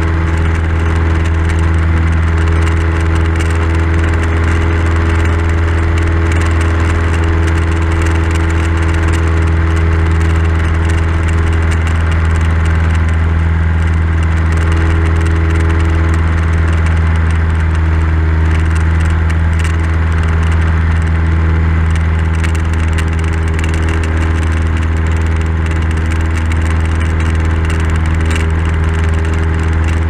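Cessna 172's piston engine and propeller running at a steady drone, heard inside the cabin in flight.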